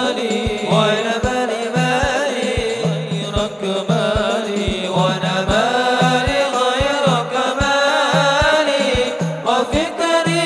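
Men singing an Islamic sholawat in long, ornamented lines through microphones, over a steady beat of low drum strokes.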